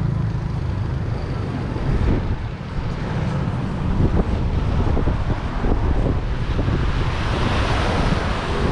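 Wind buffeting the microphone in an uneven, gusty rumble, with waves washing against a sea wall growing louder near the end.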